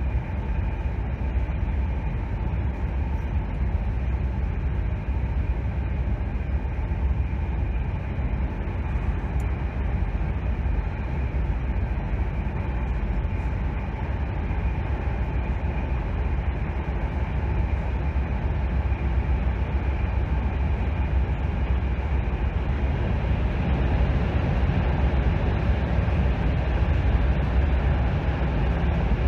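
Passenger train running, a steady low rumble that grows a little louder near the end.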